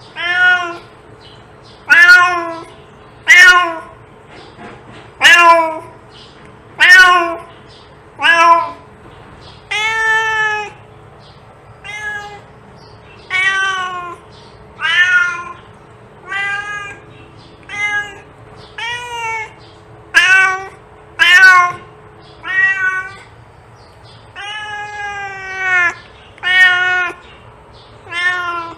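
A cat meowing over and over: about twenty separate meows, roughly one to two seconds apart, each rising then falling in pitch.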